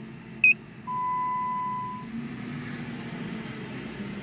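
Handheld automotive scan tool beeping as its code-erase command is run: a short high blip as the touchscreen is tapped, then a steady single-tone beep lasting about a second. Under it runs a constant low hum.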